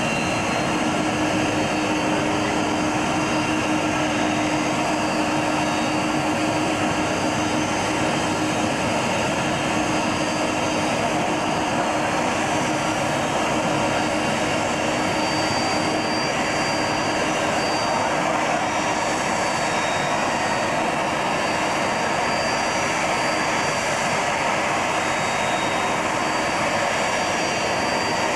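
Airbus A310 twinjet's engines running at taxi power as the airliner rolls in toward the stand: a steady jet noise with a high-pitched whine over it. A lower hum under the noise fades out about halfway through.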